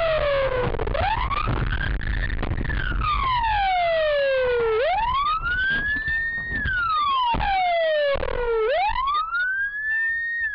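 Emergency vehicle siren in a slow wail, its pitch falling and rising again about every four seconds, over a low road and engine rumble.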